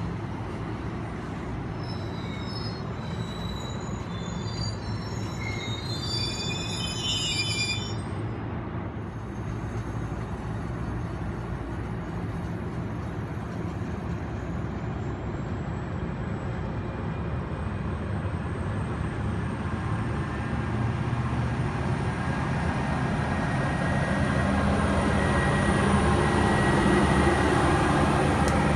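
Bilevel commuter coaches rolling past with steady wheel-on-rail noise and high wheel squeal during the first several seconds. A high whine rises in pitch about halfway through, and near the end the diesel locomotive (an ALP-45DP) draws level, its engine hum growing loudest.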